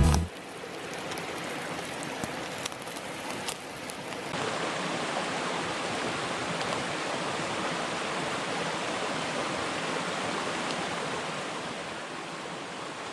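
Steady rush of running water, which becomes fuller and brighter with a sudden step about four seconds in.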